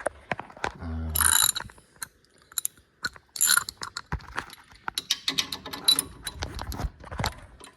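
Socket ratchet clicking in several runs of quick pawl clicks, the densest in the second half, with short metallic clinks of the 15 mm socket and tools being handled.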